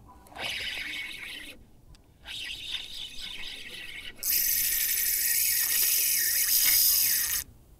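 Fishing reel's drag ratcheting in short runs, then buzzing steadily and loudly for about three seconds from about four seconds in, stopping suddenly: a hooked fish is pulling line off against the drag.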